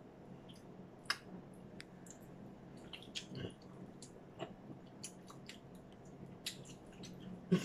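People eating: faint chewing and mouth sounds with a dozen or so small irregular clicks, typical of a spoon or fork touching a plastic food tray and dishes.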